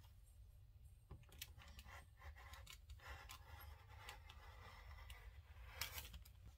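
Rotary cutter rolling through layered fabric on a cutting mat: a faint scratchy cutting sound with scattered small clicks and taps.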